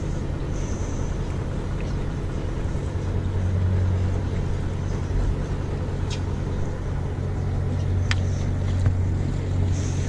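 Fishing boat's engine idling with a steady low hum, and a couple of faint clicks near the middle and later on.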